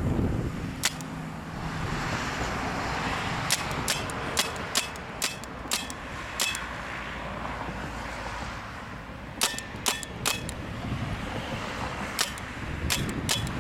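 Paintball marker firing shot after shot in irregular clusters, about seventeen sharp pops in all, over a steady hiss. It is being fired repeatedly in an attempt to make it freeze up.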